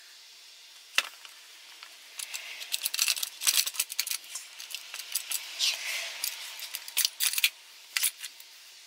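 Metal parts of a Hyosung GD250N engine's crankcase and a crankcase splitter tool clinking and scraping as they are handled by gloved hands. There is one sharp click about a second in, then a busy run of clinks and a longer scrape around six seconds in, and a last pair of clicks near the end.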